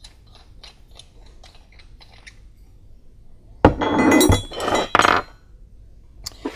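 Small metallic clicks as fittings on an aluminium oil catch can are handled. About halfway through comes a sharp clank, then a second or so of metal clattering and ringing as the can is set down on its steel mounting bracket.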